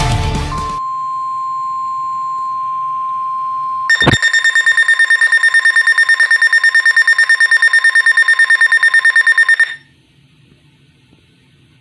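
NOAA Weather Radio warning alarm tone, a single steady tone near 1 kHz. About four seconds in, a weather radio receiver's own alert alarm switches on with a click, automatically triggered by the tone, and beeps rapidly and shrilly at about eight beeps a second over it. Both cut off sharply near the end.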